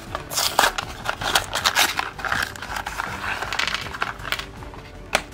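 Cardboard LEGO minifigure blind box being torn open by hand: crackling, rustling cardboard and paper with many small clicks. A few sharp clicks come near the end as small plastic pieces land on the table.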